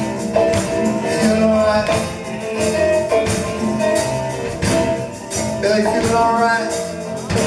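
Live band playing an upbeat groove on a drum kit and electric guitars, with steady percussion.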